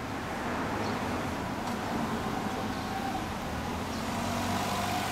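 Motor-vehicle engine and traffic noise: a steady hum that grows slowly louder.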